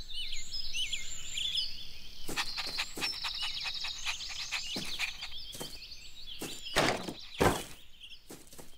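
Cartoon garden ambience of birds chirping, with scattered light knocks. Near the end come two heavier thuds as the wooden name sign falls off the doghouse and lands on the ground.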